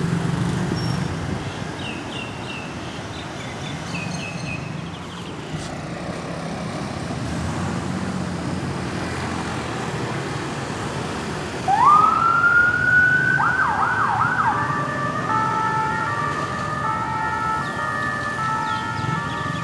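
Road traffic noise, then about twelve seconds in an ambulance's electronic siren switches on: a rising wail, a few quick yelping sweeps, then a steady back-and-forth hi-lo tone.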